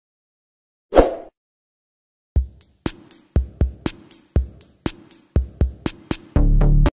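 Electronic intro music. After a moment of silence there is one short sudden hit, then a drum-machine beat of kick drums about twice a second with a steady high hi-hat line. Near the end it gives way to a held low buzzing swell that cuts off suddenly.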